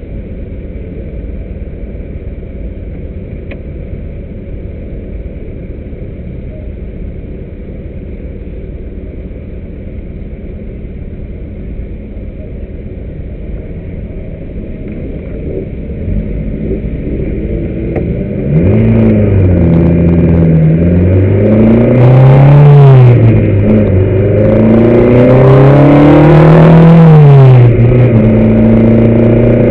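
A car engine heard from on board: it runs steadily at low revs for a long stretch. About two-thirds of the way in it pulls away, the revs climbing and dropping back several times, and it holds a steady higher speed near the end.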